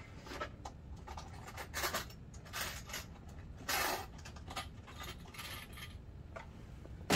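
Small metal bag hardware clinking and rattling in irregular bursts as square rings are rummaged for and picked up, over a low steady hum.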